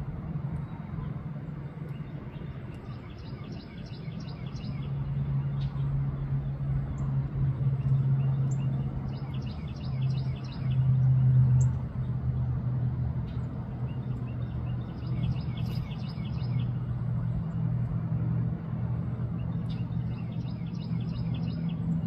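Steady low mechanical hum, like a motor or distant traffic, with four short bursts of rapid high chirping, each lasting about two seconds and coming every five or six seconds.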